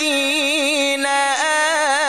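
A male voice reciting the Quran in melodic, chanted style, drawing out one long phrase with wavering, ornamented pitch that dips sharply and climbs back partway through.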